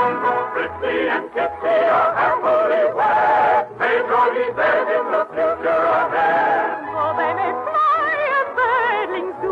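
Orchestral operetta music from an old radio recording, the sound thin in the highs. A melody with strong vibrato comes in about seven seconds in.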